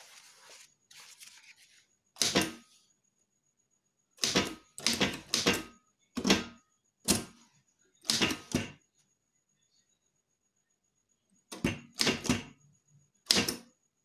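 Prima manual typewriter keys being struck one at a time, slowly and unevenly: about a dozen sharp strokes, singly and in small clusters, with pauses of a second or more between groups.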